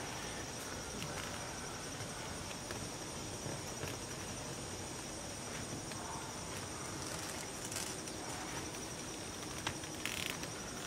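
Faint fabric and leather rustling as a leather suspender tab is worked over a waistband button, in short bouts about two-thirds of the way through and near the end, over a steady high-pitched background drone.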